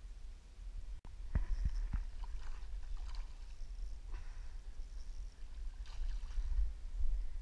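A hooked bass splashing and thrashing at the water's surface as it is reeled in close to the bank, over a low rumble of handling noise.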